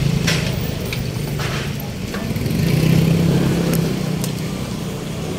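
Street traffic: a motor vehicle's engine running close by, growing louder about three seconds in as it passes, over a steady hum of traffic, with a few short clicks.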